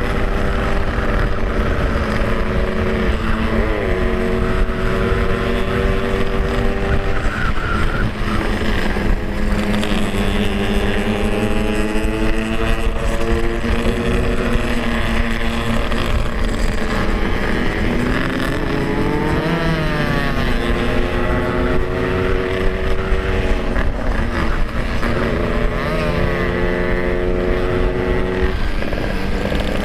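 Yamaha RX-King 135cc two-stroke single-cylinder motorcycle engine running at road speed. Its revs dip and climb again several times as it is shifted through the gears.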